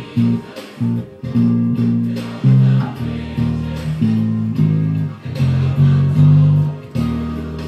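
Electric bass guitar playing a melodic line of low, sustained notes, each starting with a sharp pluck, about two or three notes a second.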